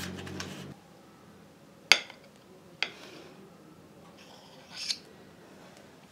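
A metal spoon clinking against a ceramic plate, one sharp clink and then a lighter one, followed by a short soft scrape as whipped cream is spooned onto the plate. A low hum stops under a second in.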